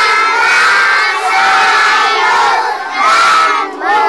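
A class of schoolchildren chanting aloud in unison, reciting a health lesson in Indonesian line by line, 'eat a lot of vegetables and fruit'. The loud chorus breaks off briefly about three and a half seconds in, then starts again.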